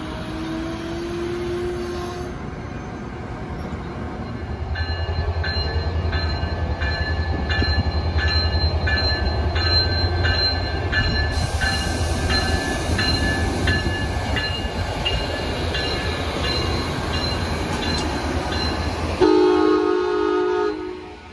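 Amtrak passenger train with a Siemens Charger SC-44 diesel locomotive passing: a deep, steady engine rumble with a bell ringing about twice a second. Near the end comes a loud train horn blast of about two seconds.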